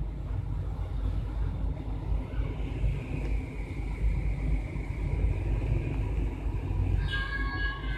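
Steady low rumble of background noise, with a short higher-pitched tone sounding near the end.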